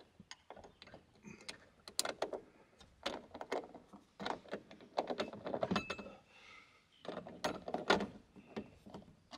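Small steel bracket and bolt hardware clicking and rattling in the hands as a metal hanger bracket is fitted onto a roof-rack bolt and its fastener turned on by hand: a string of irregular light clicks and knocks.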